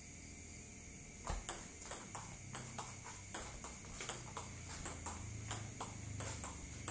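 Table tennis ball clicking in a quick rally, rubber-faced paddle hits alternating with bounces on the table, a few clicks a second. The clicks begin about a second in, after a short pause.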